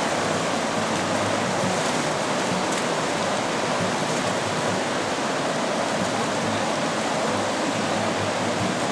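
River water rushing steadily over rocks, a continuous even wash of noise.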